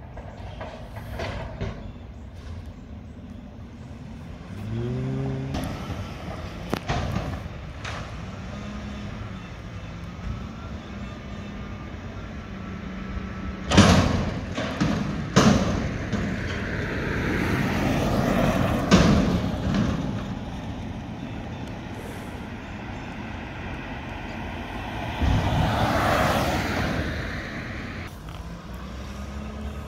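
Mack garbage truck with a McNeilus front-loader body: its diesel engine runs steadily and revs up briefly a few seconds in. Several loud metal bangs and clanks come around the middle, and a rush of noise follows a few seconds before the end.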